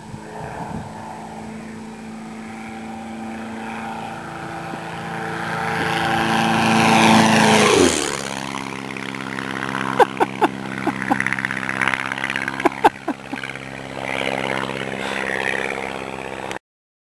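Van's RV-4 single-engine propeller airplane making a low fly-by: the engine and propeller note grows louder, peaks about eight seconds in, then drops sharply in pitch as it passes and fades as it climbs away. A few sharp clicks follow the pass, and the sound cuts off abruptly near the end.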